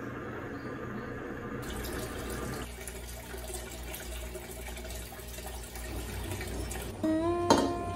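Water in a home aquarium running and splashing steadily. Near the end a ringing tone comes in, struck with a sharp knock.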